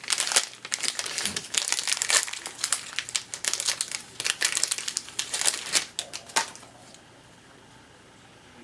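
Crinkling and rustling of a baseball card pack's wrapper being handled, as a series of irregular crackles that stop about six and a half seconds in.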